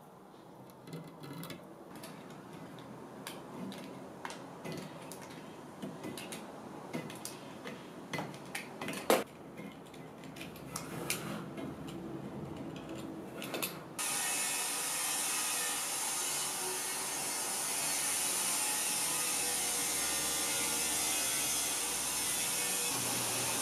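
Small irregular scrapes and clicks of a toothpick and a small hand scraper picking filler out of the carvings of a mirror frame, with one sharper click about nine seconds in. About fourteen seconds in, a steady loud hiss starts suddenly and keeps on.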